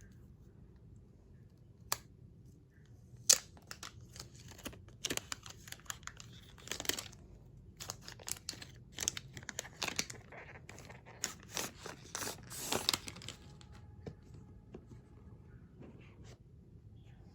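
Phone box packaging being torn open and crinkled by hand: a sharp snap or two, then a run of short tearing and rustling sounds that die down after about thirteen seconds into quieter handling.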